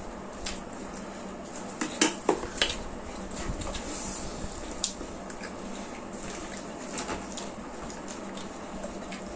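Tableware clinking and scraping against plates while eating: a few sharp clinks about two seconds in and another near five seconds, over a steady low hiss.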